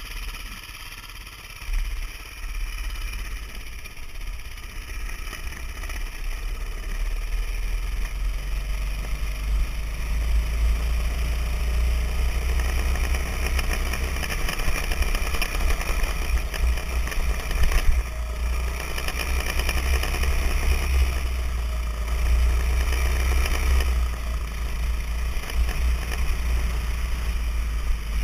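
Dirt bike riding a dirt track: the engine running under a heavy low rumble, quieter for the first couple of seconds, then louder and steady.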